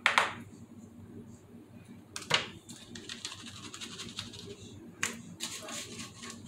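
Metal knife scraping and tapping in a plastic bowl of crumbled strawberry cookie topping, with scratchy rustling as the crumbs are stirred. Sharp scrapes at the start and again about two seconds in, then quick light clicks near the end.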